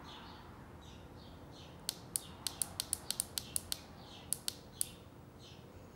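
Push button on a CT22 motorcycle LCD display being pressed repeatedly to step a digit of the entry code: a quick run of about a dozen sharp clicks, starting about two seconds in and ending near the five-second mark, over faint, repeated high chirps.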